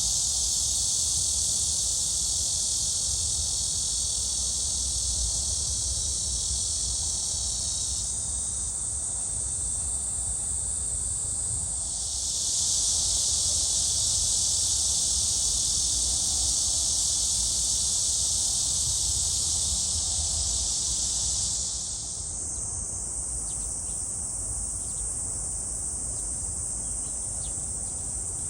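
Cicadas buzzing in a dense, steady chorus that thins about eight seconds in, swells again around twelve seconds and eases off a little past twenty seconds, over a low rumble.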